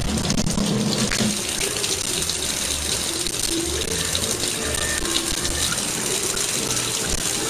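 Kitchen tap running steadily, a thin stream of water splashing into a stainless-steel sink.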